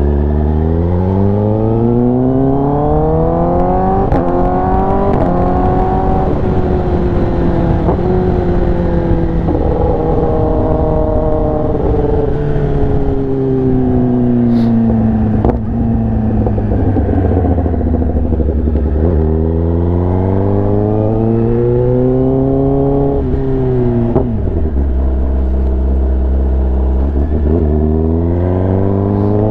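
Kawasaki ZX-10R inline-four engine through an SC-Project aftermarket exhaust, under way on the road. The engine note climbs under acceleration, falls away slowly, then climbs again, drops suddenly about two-thirds of the way through, and starts climbing again near the end.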